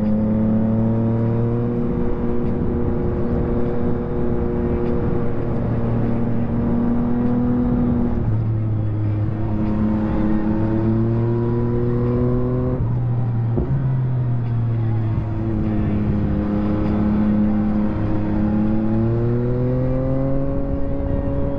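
Yamaha MT-09 SP's inline three-cylinder engine through a full Akrapovic race exhaust, ridden hard: revs climb and fall again and again, with sudden drops in pitch at gear changes, about a third, three-fifths and two-thirds of the way through.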